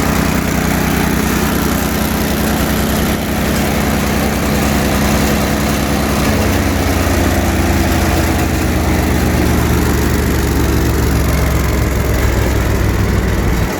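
Brush Bandit 65XP wood chipper's Kohler 25-horsepower engine running steadily; from about halfway through its pitch slowly falls.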